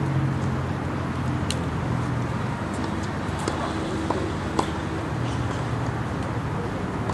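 Steady hum of road traffic with a low engine drone. A few faint, sharp clicks stand out, the clearest about four and a half seconds in.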